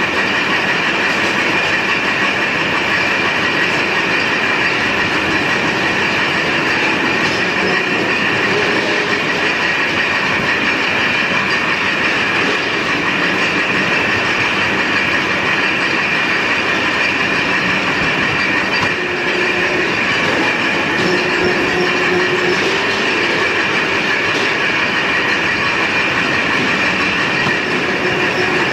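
Steady, loud industrial machinery noise of a steel rebar plant's induction furnace and rolling mill running, with high-pitched tones held constant throughout.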